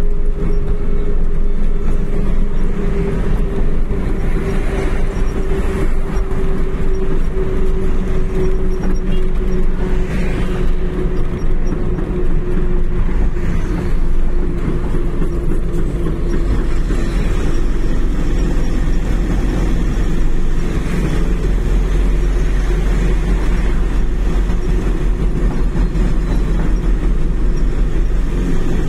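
A vehicle's engine and road rumble heard on board while cruising on a highway: a steady drone whose pitch sinks slightly over the first half, over a deep continuous rumble.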